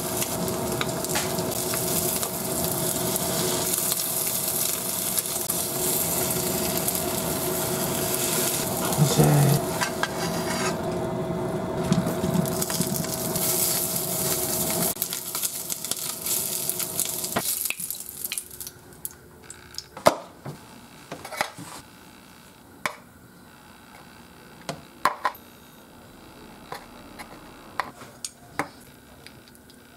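Beaten egg sizzling in a square tamagoyaki pan while chopsticks stir and fold it, then octopus-cut sausages frying in the same pan, with a steady hum under it that stops about fifteen seconds in. The sizzling ends after about eighteen seconds, leaving scattered light clicks and knocks of chopsticks and the pan against an aluminium bento box.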